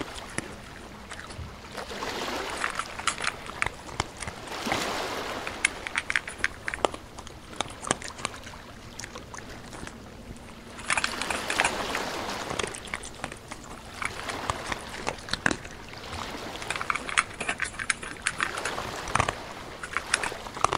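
A dog splashing in a shallow muddy puddle, pawing and mouthing at the water, in stretches of sloshing a few seconds long with quieter gaps between.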